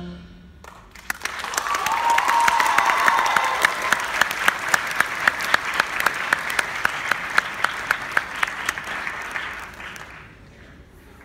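Audience applause at the end of a wind orchestra's performance: the band's last chord ends right at the start, and clapping swells about a second in, with one close clapper's sharp claps about three a second standing out, then dies away near the end.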